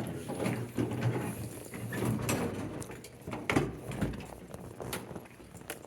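Irregular clicks, knocks and rustling handling noise, with a sharper knock about three and a half seconds in.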